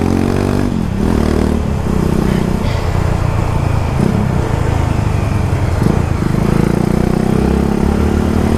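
Two motorcycles riding side by side, their engines running under way, with the pitch rising as they accelerate in the first second or so.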